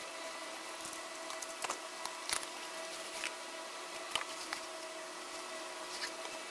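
Cardboard packaging being opened and handled: scattered light taps, scrapes and rustles, strongest in the first half, over a steady hiss with a faint hum.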